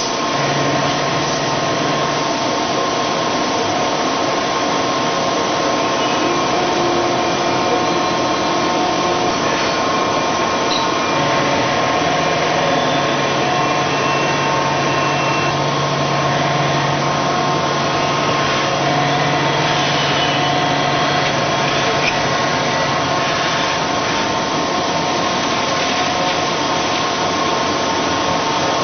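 CNC mill profile-machining a billet 4340 steel connecting rod: the spindle and cutter run steadily under a spray of coolant, a constant hiss with a whine of several steady tones and a low hum that fades in and out.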